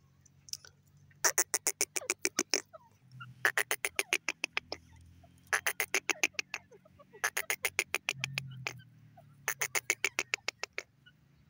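Grey francolin calling: five loud bouts of rapid, evenly repeated sharp notes, each bout lasting about a second and a half, with short pauses between them.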